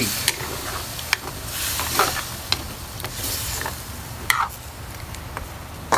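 Metal spoon stirring in an aluminium wok, scraping and clinking against the pan now and then, over a steady sizzle from the chicken simmering in its liquid.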